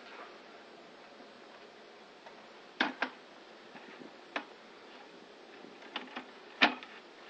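Plastic buckets being handled and fitted together: about six sharp clicks and knocks over a faint steady hiss, a pair about three seconds in, one a little later, and a cluster near the end, the last the loudest.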